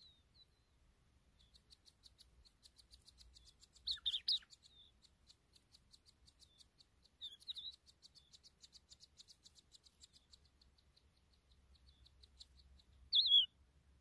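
A ground-nesting songbird nestling begging for food: a rapid run of thin, high cheeps at about five a second, with three louder calls breaking in, the last near the end.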